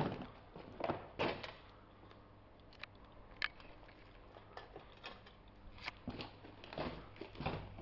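Irregular footsteps scuffing and crunching on a grit-covered concrete floor, a few scattered steps with a quieter stretch in the middle and more of them near the end.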